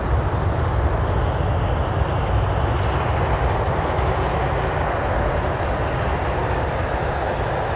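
Airbus A320 airliner rolling out on the runway after landing: a steady jet-engine roar over a deep rumble, slowly easing.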